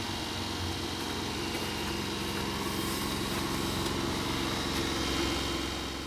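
Small engine running steadily at idle, a constant hum that eases off slightly near the end.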